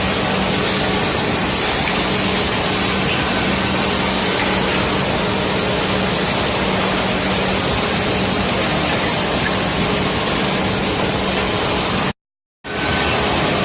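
Woodworking finger-joint line running: a steady, loud machine noise with a low hum under it. The sound drops out completely for about half a second near the end.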